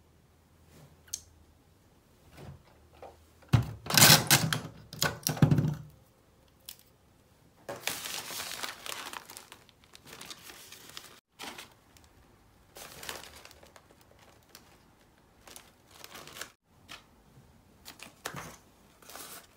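Paper wrapping of a tulip bouquet rustling and crinkling in irregular bursts as hands handle it. The loudest rustle is about four to six seconds in.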